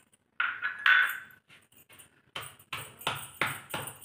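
Stone pestle pounding a wet red chilli and garlic chutney in a stone mortar: a steady beat of about three strokes a second starting about two seconds in. Before that comes a short, louder scraping rustle.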